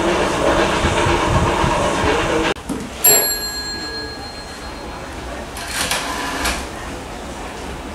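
A steam locomotive working as it pulls away, with voices around it, until the sound cuts off abruptly. About a second later comes a single bell stroke that rings on for about a second and a half. Near six seconds in there is a brief rattling burst as the crank of a wooden magneto wall telephone is turned.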